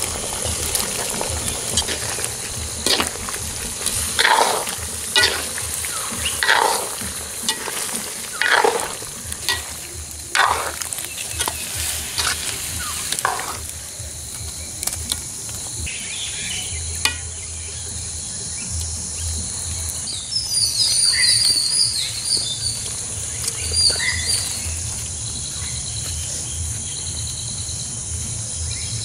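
Prawns, tomatoes and green chillies sizzling in a pan, with a spoon stirring and scraping about once a second through the first half. Chirping rises in the background later on.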